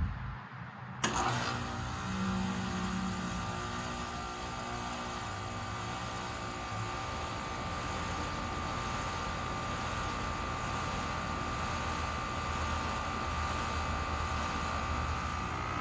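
2023 Carrier Sentry 15 heat pump starting up in heat mode: it kicks on suddenly about a second in, then runs steadily with a hum and several steady tones, a higher whine growing stronger near the end.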